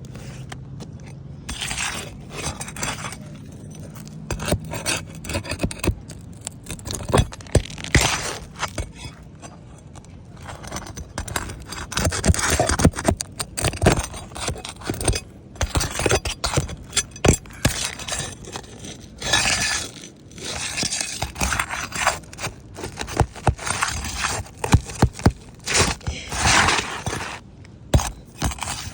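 Asphalt roof shingles being worked loose by hand for a shingle replacement: irregular gritty scraping, broken up by many sharp clicks and clinks.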